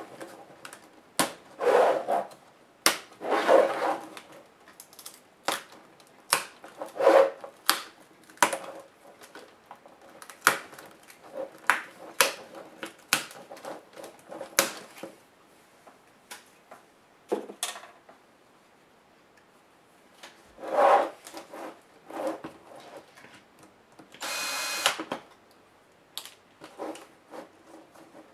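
Plastic clips of a Gateway W340UA laptop's LCD bezel clicking and snapping as the bezel is pried off by hand, with the plastic creaking in several louder stretches. About 24 seconds in, a cordless screwdriver whirs for about a second.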